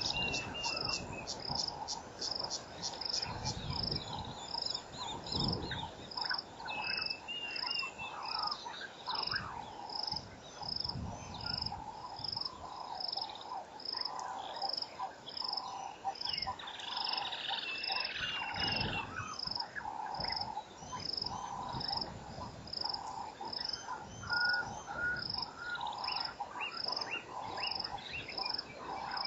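Outdoor chorus of calling insects and frogs: a high chirp repeating evenly about one and a half times a second over a lower, uneven pulsing chorus, with a few short chirping calls and some low rumbles.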